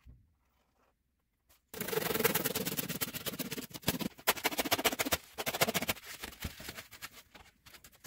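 A kitchen knife cutting through a thick foam block: near silence, then, about two seconds in, a sudden run of rapid scraping cutting strokes that thins out after about five seconds into scattered scrapes.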